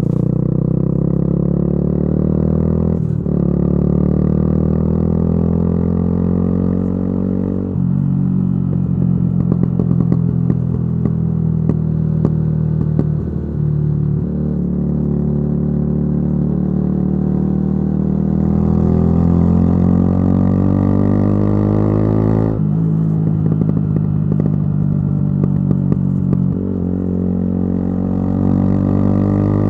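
Yamaha YZF-R125's single-cylinder four-stroke engine through a modified exhaust, pulling under way. The pitch climbs steadily and drops back at several gear changes, with some rattly crackle in the middle.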